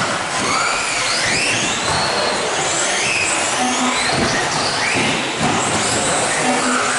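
Several 1/10-scale electric RC off-road buggies racing: their motors whine in overlapping tones that rise and fall in pitch as they accelerate and slow for corners and jumps, over a steady rush of noise.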